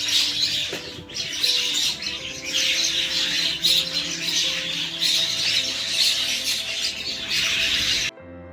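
Many birds chattering and squawking together in a dense stream of short calls, over steady background music. The bird calls cut off suddenly near the end, leaving only the music.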